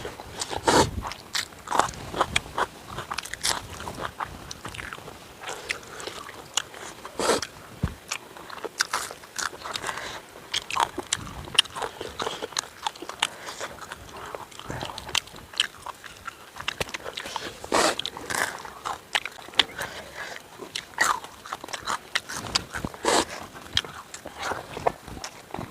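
A person eating tandoori chicken close to the microphone: irregular bites, crunches and chewing sounds throughout.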